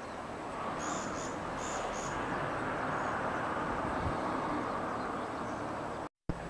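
Steady rushing outdoor background noise, with a few short, high bird chirps between about one and two seconds in.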